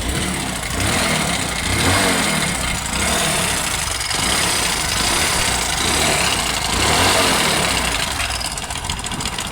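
Hero Passion Pro motorcycle's single-cylinder four-stroke engine running and being revved up and down several times, with an abnormal mechanical noise from inside the engine. The mechanic identifies it as timing chain noise, not a main bearing.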